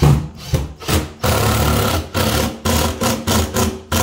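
Cordless impact driver driving screws into a cabinet's side panel. It goes in a string of short trigger bursts, with one longer run of about a second a little before the middle.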